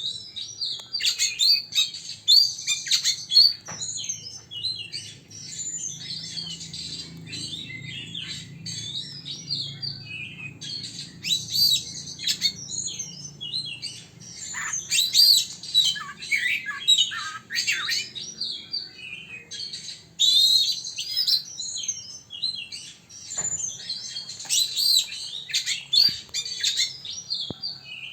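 Kept songbird singing: rapid chirps and twittering phrases in bursts separated by short lulls.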